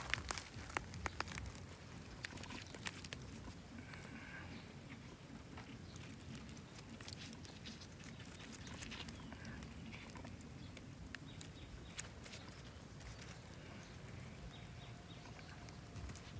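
Faint crackling of beef roasting over wood embers: scattered sharp ticks and pops, busiest in the first few seconds.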